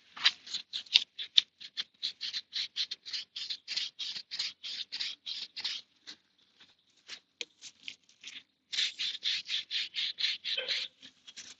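Stiff chain brush scrubbing a motorcycle's diesel-wetted drive chain in quick, even strokes, about four or five a second, slowing to a few scattered strokes for a couple of seconds past the middle before picking up again.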